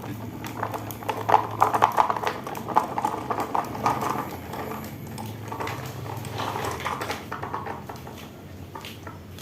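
Marbles rolling and clacking down a wooden ramp track, a rapid irregular clatter of small knocks that thins out toward the end.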